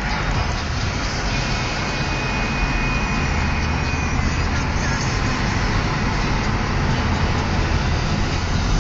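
Steady road and engine noise heard inside a moving car driving in city traffic.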